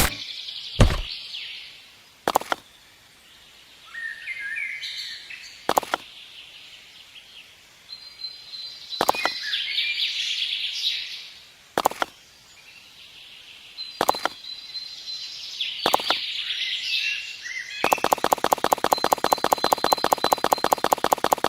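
Small birds chirping and twittering, with sharp taps about every two seconds. Near the end a fast, even ticking starts.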